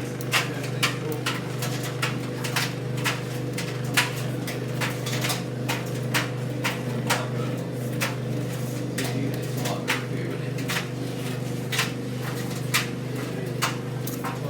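White Knight C44A7W tumble dryer running: a steady motor hum with irregular knocks and clicks, about two a second, as the drum turns.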